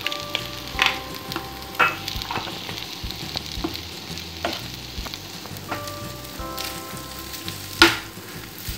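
Spoon stirring paneer cubes into a simmering masala gravy in a kadai, with a soft sizzle underneath. Irregular clicks and scrapes of the spoon against the pan, some of them ringing briefly, with a sharper knock near the end.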